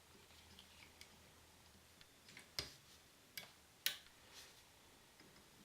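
Near silence with a few faint clicks and taps, the three sharpest close together near the middle: small handling noises of the soldering gun, wires and brass connector while the connector heats up.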